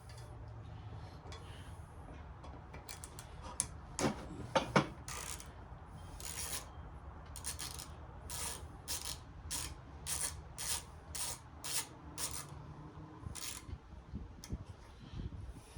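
Hand tool with an Allen bit working bolts out of a radial arm saw: a series of short rasping, clicking strokes, about one to two a second, with two sharper clicks about four seconds in.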